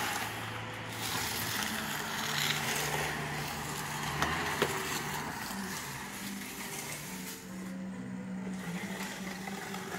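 An engine running steadily, its hum stepping up in pitch a couple of times, with two short sharp knocks a little before halfway.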